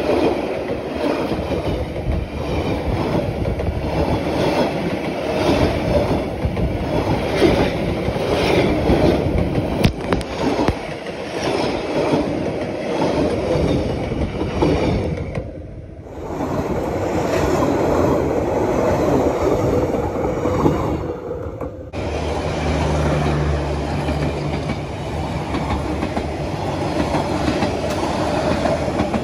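Vietnamese passenger coaches passing close by: a steady rumble of wheels on rail with rhythmic clatter as the wheels cross the rail joints. The sound breaks off and resumes twice, and a low steady hum joins after the second break.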